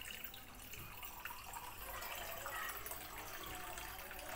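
Faint bubbling and sizzling of a besan gatte curry cooking in a steel pot on a gas stove, with a spoon stirring and scraping against the pot in small clinks.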